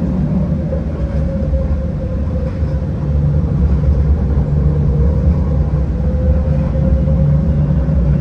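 Inside a moving Dubai tram (Alstom Citadis) on the run: a steady low rumble from the wheels and running gear, with a steady whine that sinks a little in pitch and rises again near the end. It grows louder about three seconds in.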